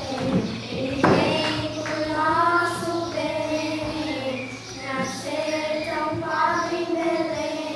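Slow singing by several voices, most likely children, moving in long held notes. A single knock sounds about a second in.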